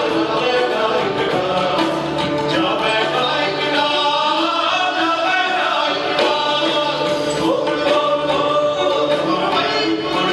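Indian fusion rock band playing live: dense, steady music with a male vocal line over it.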